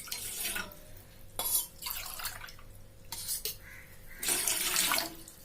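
Water poured from a tumbler into a cooking pot in several short splashing pours, the longest about four seconds in.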